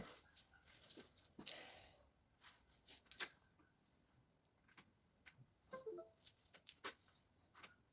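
Near silence, with a dozen or so faint, scattered clicks and light knocks.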